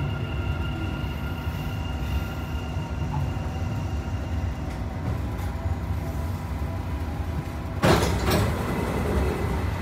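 Dubai Metro train heard from inside, running through a tunnel and slowing into an underground station: a steady low rumble with a motor whine that fades out about five seconds in. About eight seconds in, as the train comes to a stop, a sudden loud hiss.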